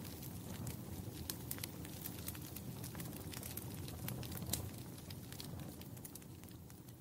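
Wood fire crackling in a fireplace: irregular sharp pops and snaps over a low steady rumble of flames, slowly fading out toward the end.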